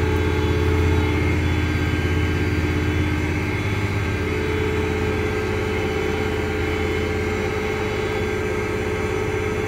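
Cummins diesel engine of a Versatile 365 front-wheel-assist tractor running steadily under way, heard from inside the cab as a steady low drone. It eases off slightly about three to four seconds in.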